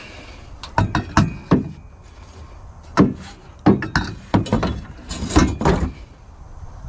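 Steel trampoline frame tubes clanking against each other as they are handled and loaded: a string of sharp metal knocks, some ringing briefly.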